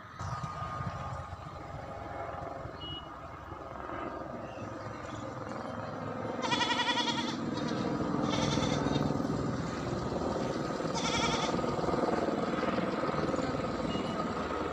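A goat bleating three times, each call short with a shaky, wavering pitch, over a steady low rumble.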